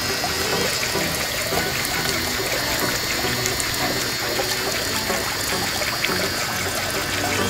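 Steady stream of water from a miniature DIY pump's clear tube pouring and splashing into a small pool of water, with the pump's little electric motor running.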